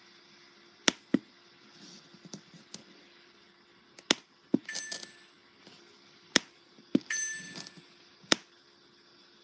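A series of sharp clicks and taps, about seven loud ones irregularly spaced, two of them followed by a short metallic clinking ring.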